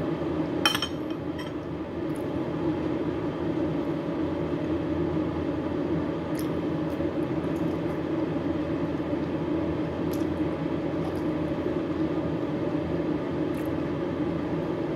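A metal spoon clinks sharply once against a ceramic bowl about a second in, over a steady low hum. Later come a few faint short clicks while she eats with her fingers.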